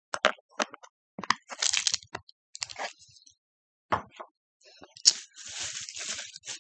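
Candy packaging being handled: several sharp clicks and knocks, short rustles, and a longer crinkling rustle that starts with a loud click about five seconds in.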